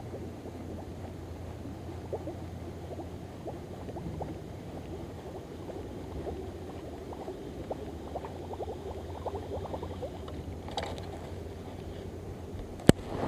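Wind rumbling on the microphone over light, irregular ticking and water sounds as a surface lure is worked through weedy water. A single sharp click comes near the end.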